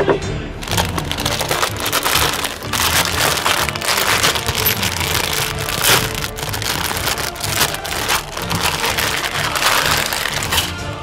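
Clear plastic bag crinkling and rustling as plastic model kit sprues wrapped in it are handled and lifted out of the box, over background music.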